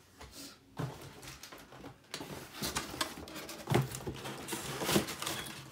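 Cardboard box being handled on a wooden workbench: a knock as it is set down, then its flaps and cardboard inserts scraping and rustling, with two sharper knocks near the end.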